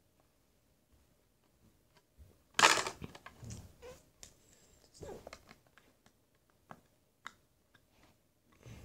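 Plastic Lego bricks being handled and pressed together. There is a brief, louder rustling clatter between two and three seconds in, then scattered light clicks.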